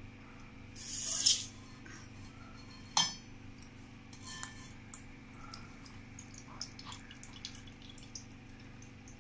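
Kitchen handling as soaked flattened rice (poha) is drained: a short wet splash about a second in, a sharp clack about three seconds in as a stainless steel mesh strainer is set on the stone counter, then soft clinks and wet sounds as the poha is tipped from a glass bowl into the strainer.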